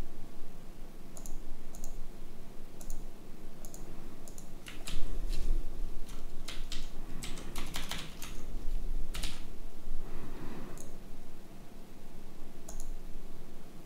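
Typing on a computer keyboard with clicks: a few separate clicks in the first seconds, a quick run of keystrokes in the middle, then a few more single clicks near the end.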